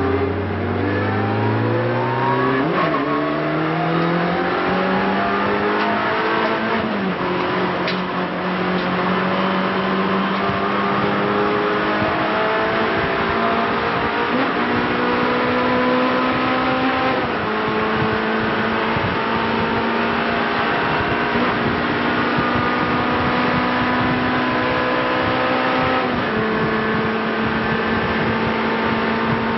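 Renault Clio race car engine heard from inside the cockpit under hard acceleration. Its note rises steadily for the first several seconds, then holds at high revs with a few sudden steps in pitch.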